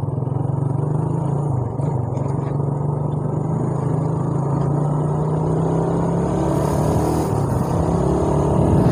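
Motorcycle engine running at a steady road speed, with a brief dip in pitch about two seconds in, over rushing wind and road noise.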